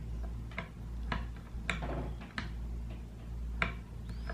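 A hex driver turning and snugging up a screw on a Benjamin 392 air rifle's breech, giving about five sharp metallic clicks at uneven intervals of roughly half a second to a second. A steady low hum lies under them.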